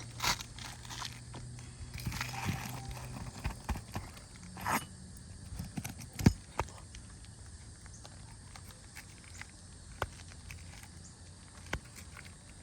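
Scattered clicks, knocks and scrapes of a roofing snake being worked under asphalt shingles to cut the nails holding a shingle, with one sharp knock about six seconds in.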